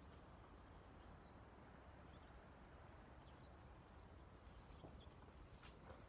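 Near silence: faint rural outdoor ambience with a low rumble and a few faint, short bird chirps. Soft footsteps begin near the end.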